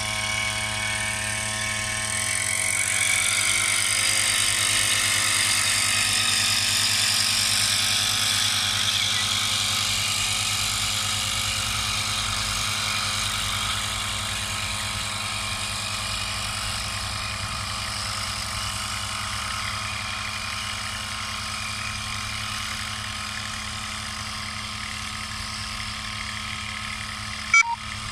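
Small engine of a backpack power sprayer running steadily at constant speed, with a hiss from the air and spray blast that swells and fades. A sharp click near the end.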